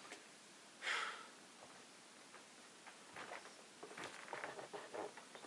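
One short sniff about a second in, then soft, irregular footsteps on a wooden stage floor from about three seconds in.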